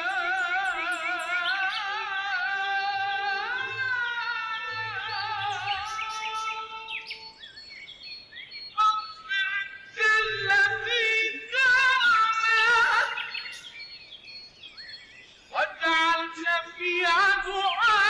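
Arabic devotional song: one voice singing long, wavering melismatic notes with heavy vibrato, then shorter phrases with brief pauses in the second half.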